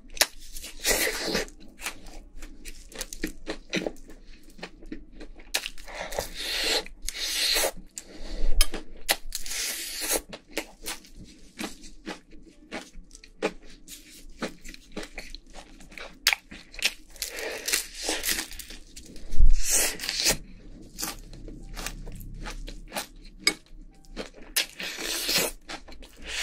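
Close-miked chewing of crispy Korean fried chicken: irregular crunches of the fried skin, wet chewing and the meat tearing apart, with one louder thump about two-thirds through.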